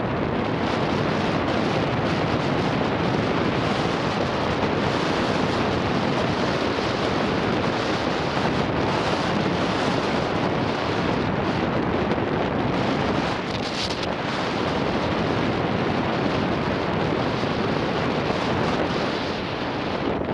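Steady wind noise buffeting the microphone of a helmet camera on a mountain bike moving at speed, with a brief sharper hiss about two-thirds of the way through.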